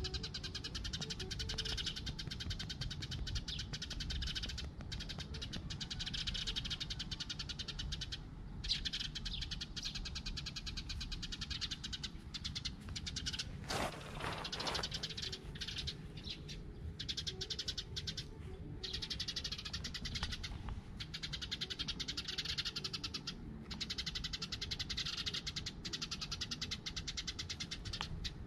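A brown tabby cat meowing, with one clear call about halfway through, over a steady high hiss.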